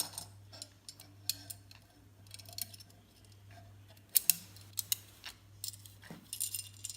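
Toy handcuffs clicking and rattling as a cuff is closed and ratcheted tight on a wrist: a string of sharp, irregular clicks, more of them in the second half.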